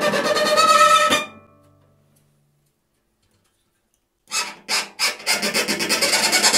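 Cello played with the puffup technique: a dax pressed firmly on the string midway between fingerboard and bridge while the bow presses hard, giving an intense scratch tone in repeated bow strokes that speed up. One run ends about a second in; a few seconds later a second run starts with separate strokes and quickens into dense scratching.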